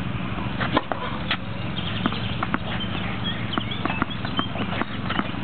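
Tennis balls struck by rackets and bouncing on a clay court: a sharp racket hit of a serve about a second in, then scattered, irregular knocks of further hits and bounces. Under them runs a steady low hum.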